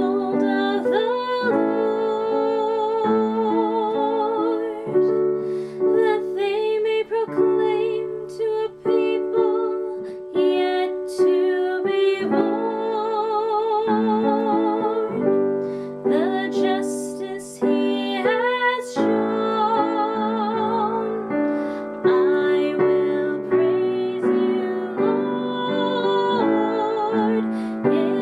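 Sung psalm setting: a woman's voice singing a slow melody with vibrato over keyboard chords.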